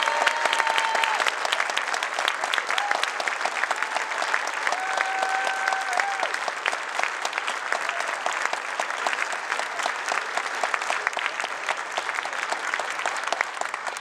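Large audience applauding with steady clapping. A few voices call out over it near the start and about five seconds in, and the applause eases slightly toward the end.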